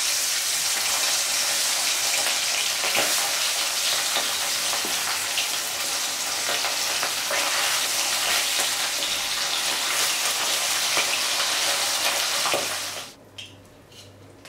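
Pomfret fish sizzling as it fries in hot oil in a steel kadai, with a few light clicks of a spatula turning it. The sizzle cuts off sharply about 13 seconds in.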